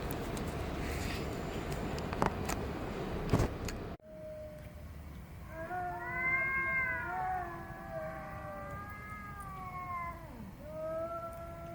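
A domestic cat meowing in a series of long, drawn-out, wavering calls, starting about six seconds in. Before that, a rustling outdoor noise with a few knocks cuts off abruptly about four seconds in.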